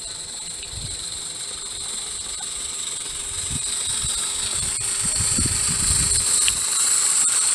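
A 32 mm gauge Roundhouse Millie live steam locomotive running past with a steady high hiss that grows louder as it nears. There are a few low rumbles in the middle.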